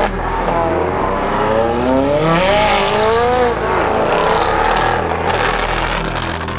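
McLaren sports car's twin-turbo V8 accelerating hard away, its pitch climbing, falling back at a gear change about two and a half seconds in, and climbing again before fading as the car pulls away.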